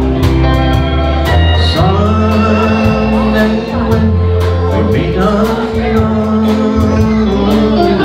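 Live country band playing a slow ballad: pedal steel guitar gliding between sustained notes over bass, keyboard and drums, with a steady hi-hat tick.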